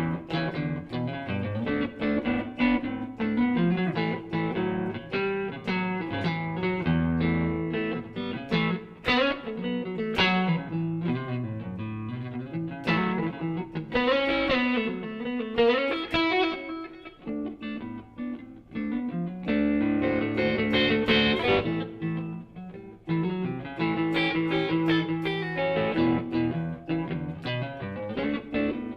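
Stratocaster electric guitar played through a Surprise Sound Lab Flex15 single-ended amp on its clean 5-watt setting, into a 2x12 cabinet. It plays blues lines and chords, with string bends about halfway through.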